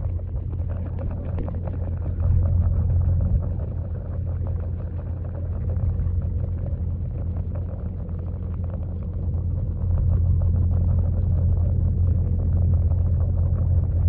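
Pond waterfall heard underwater through a GoPro's waterproof housing: a steady, muffled low rumble of churning water with fine crackle, somewhat louder from about ten seconds in.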